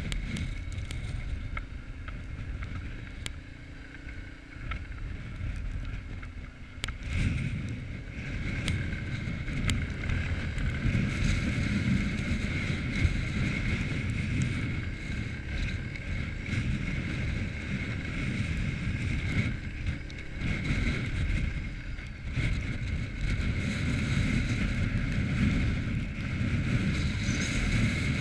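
Quad bike (ATV) engine running as it rides over snowy hill ground, with wind buffeting the microphone; it grows louder about seven seconds in.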